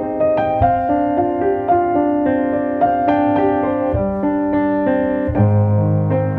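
Background piano music: a slow melody of struck, ringing notes, with deeper bass notes coming in about five seconds in.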